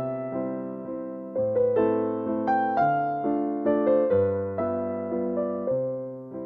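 Background music: a gentle keyboard melody over chords, each note struck and fading away.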